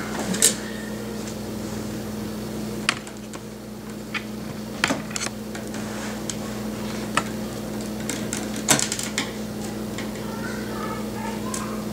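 Scattered small clicks and taps of a screwdriver and tiny screws as the side screws holding a laptop's LCD panel are taken out, over a steady low hum.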